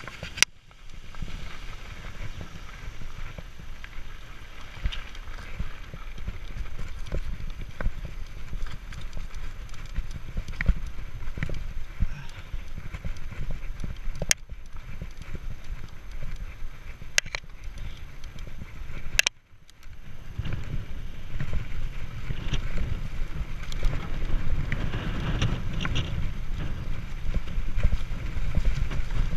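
Mountain bike being ridden over gravel and grass: rumbling tyres, wind on the microphone, and scattered clicks and knocks from the bike rattling over bumps. The sound drops out for a moment about two-thirds of the way through.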